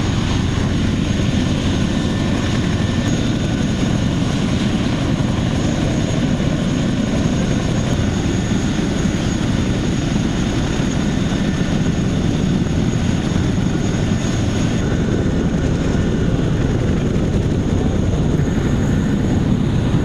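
Mil Mi-17 helicopter running steadily on the landing zone: a continuous heavy rotor and engine noise with a thin, high turbine whine over it.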